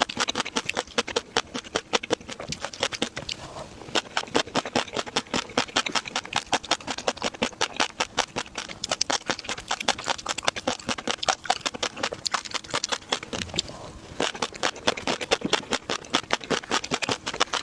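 Close-up eating sounds: someone chewing seafood in a mukbang, with rapid wet, crunchy clicks several times a second. There are brief lulls about four seconds in and again near fourteen seconds.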